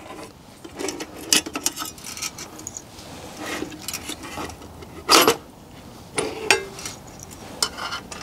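Metal clinks and clanks of a PT-1 petrol camping stove being handled in its tin case as its folding pot supports are set up. A run of separate knocks, the loudest clank about five seconds in.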